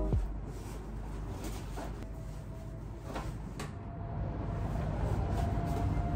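Front door being unlocked and opened: a few faint clicks and knocks of the lock and latch over a low steady rumble.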